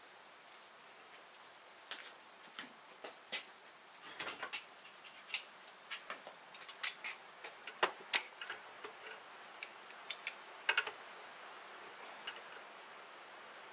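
Irregular sharp metallic clicks and clinks from locking pliers and a steel tie rod held in a bench vise, as the rod's threaded-rod splice is turned and tightened.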